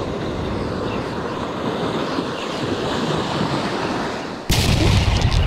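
Small waves breaking and washing up a sandy beach, a steady rush of surf. About four and a half seconds in, the sound jumps suddenly to a louder, deeper rush with a run of quick clicks.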